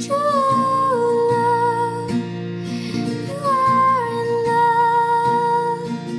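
Pop song: a female voice holds two long notes, each stepping down in pitch about a second after it starts, over a steady backing with guitar.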